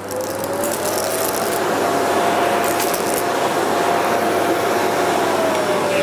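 Philips Performer Ultimate bagged canister vacuum cleaner running on a mat. Its motor whine rises over the first couple of seconds as the suction power is turned up, holds steady, then dips slightly near the end.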